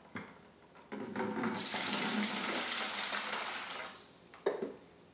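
Water pouring and splashing steadily for about three seconds, starting about a second in and tailing off; a short knock follows near the end.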